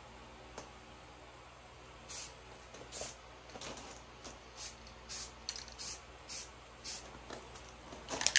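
Rattle can of spray paint hissing in about ten short bursts, beginning about two seconds in and coming quicker toward the end: light, quick passes of paint rather than a steady spray.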